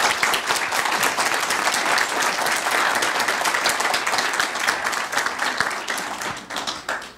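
A congregation applauding, many hands clapping together, dying away near the end.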